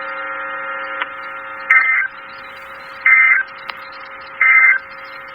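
Emergency Alert System end-of-message signal: three short bursts of warbling digital data tones, about 1.3 s apart, over a steady electronic hum.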